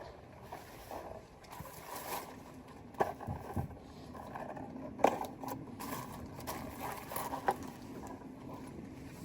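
A few light clicks and knocks, the sharpest about three, five and seven and a half seconds in, over a faint steady background hum.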